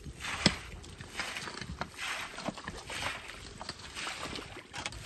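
Shovels scraping and digging into wet mud and gravel, with repeated wet slops and scrapes and a sharp knock about half a second in.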